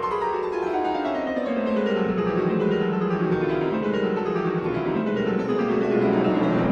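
Background music on piano, playing a series of descending runs.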